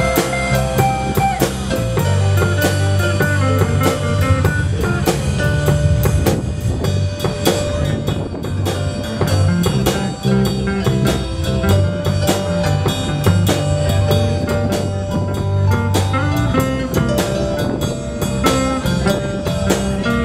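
Live band playing through PA speakers: drum kit with steady, busy hits, electric guitars and keyboard over a running bass line.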